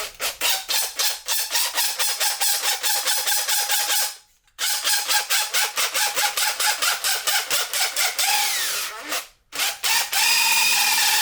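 Power drill with a long, badly bent extension bit boring out a channel in a 3D-printed plastic part: a fast rhythmic knocking, about six a second, over the motor tone, from the wobbling bit. It stops briefly twice, then runs steadily near the end.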